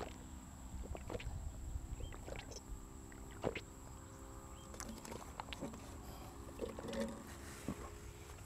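Faint gulping and swallowing as a man drinks water from a plastic bottle, with scattered soft clicks over a low, steady rumble.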